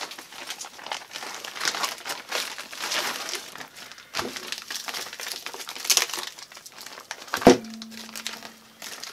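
Plastic bag crinkling and crackling as it is opened and handled around a frozen block of bait. A single sharp knock sounds near the end.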